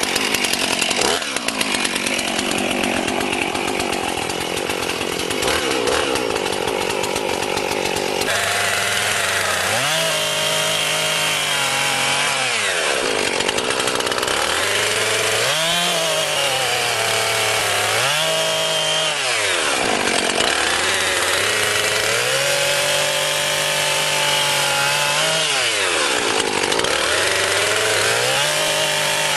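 Husqvarna 450e 50cc two-stroke chainsaw running at high speed and cutting wood. Its engine pitch drops under load and climbs back several times.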